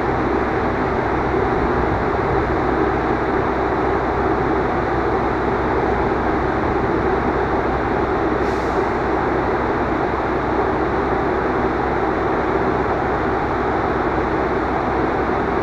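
A diesel locomotive engine running steadily, a constant rumble with no change in level.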